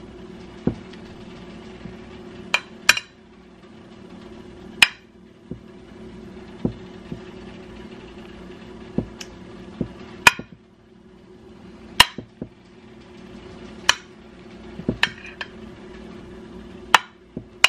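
Metal spoon clinking and scraping against a glass casserole dish while spreading a thick creamy mixture, in sharp irregular clinks about once a second. A steady low hum runs underneath.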